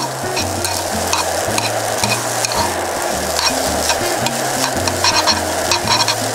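Yakisoba noodles and bean sprouts sizzling in a frying pan while chopsticks stir and toss them, with frequent light clicks of the chopsticks against the pan.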